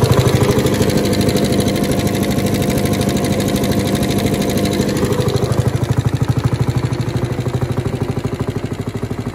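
Lanz Bulldog D7508 orchard tractor's single-cylinder two-stroke hot-bulb engine idling on its first firing, a steady even beat of firing strokes that grows a little quieter about halfway through.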